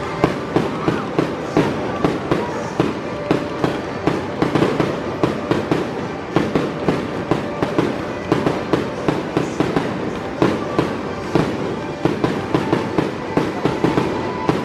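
Aerial fireworks launched and bursting in rapid succession: a steady run of sharp pops and bangs, several a second.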